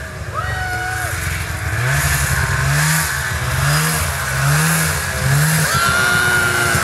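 Ski-Doo Summit 670 snowmobile's two-stroke engine running as the sled approaches, its pitch rising and falling about once a second as the throttle is worked, with a steady high whine near the end.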